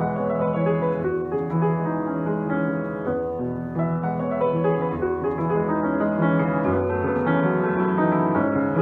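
A 2019 Schimmel Wilhelm W180 grand piano played with both hands in a flowing passage of many notes, with low notes held under a moving upper line.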